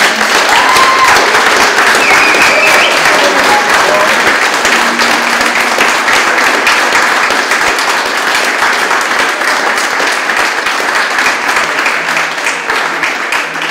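Guests applauding: dense, sustained clapping from many hands, with a few voices calling out over it early on. The clapping eases slightly near the end.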